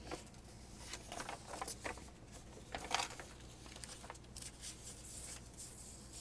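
Paper rustling softly as printed cross-stitch chart sheets are unfolded and laid down, in short scattered crinkles, with the loudest one about three seconds in.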